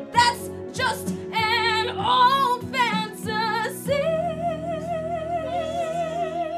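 A woman singing solo with strong vibrato: a few short, ornamented phrases, then one long held note from about four seconds in, over steady sustained accompaniment chords.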